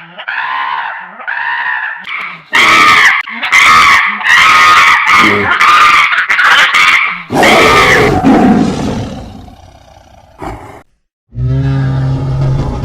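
Monster sound effects for Kissy Missy: a few short repeated calls that rise and fall in pitch, then loud, harsh roars for about five seconds that fade away. After a brief silence near the end, a different low, steady droning sound starts.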